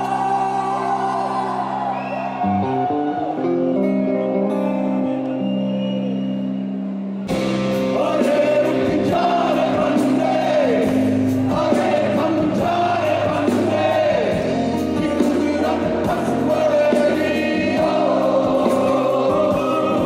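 Live folk-rock fusion band music with singing: a softer passage of held chords and a sung line, then about seven seconds in the music changes abruptly to the full band with drums and a louder vocal.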